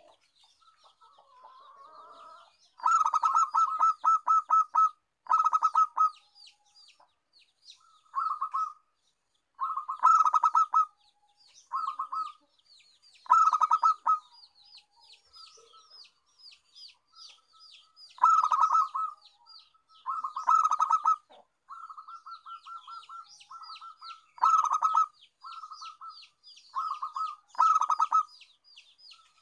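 Zebra dove (perkutut) singing: about a dozen bursts of rapid, staccato cooing notes, a second or two each, spaced a few seconds apart. Thin high chirping runs faintly in the gaps.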